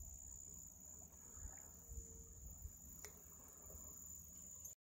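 Near silence with a faint, steady, high-pitched insect trill that cuts off abruptly just before the end.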